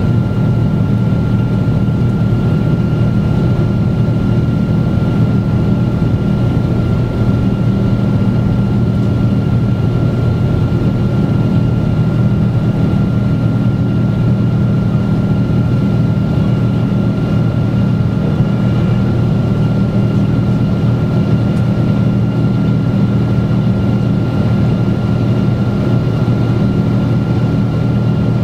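Cabin noise of a Boeing 777-200 climbing after takeoff: a steady, heavy drone of the engines and rushing air, strongest in the low range, with a thin steady whine above it.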